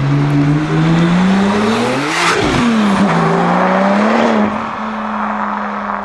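Porsche sports car driving past at speed: the engine note climbs as it approaches, peaks as it goes by about two seconds in, then drops as it pulls away and settles into a steadier tone.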